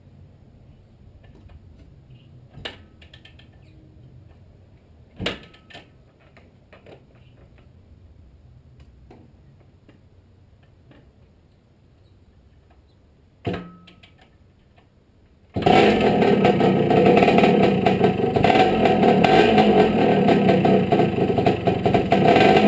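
1978 Yamaha YZ250E 250 cc two-stroke single being kick-started: three separate thumps from the kick-start strokes, then about two-thirds of the way through the engine catches suddenly and keeps running loudly.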